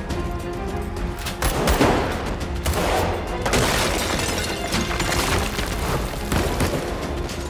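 Tense action-scene music with rapid bursts of gunfire starting about a second and a half in and recurring several times.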